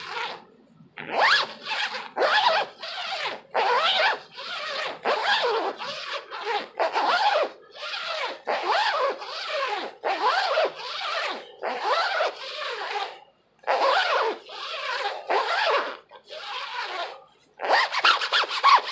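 Small plastic zipper of a windbreaker being zipped up and down over and over, a loud rasp about twice a second, with a couple of brief pauses.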